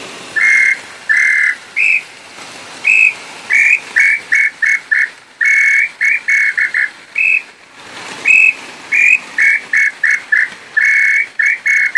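Hand-made wooden throat-type call ('pio garganta') for the tataupa tinamou (nambu pé-roxo) being test-blown by mouth. It gives a long run of clear whistled notes, long ones mixed with quick strings of short ones, with a brief pause about two-thirds of the way through.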